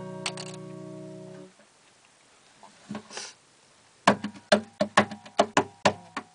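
Acoustic guitar: a held chord rings and dies away after about a second and a half. After a short pause, rhythmic percussive strumming begins about four seconds in.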